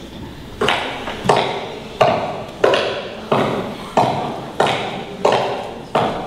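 A steady beat of sharp knocks, about three every two seconds, each ringing out briefly in the hall.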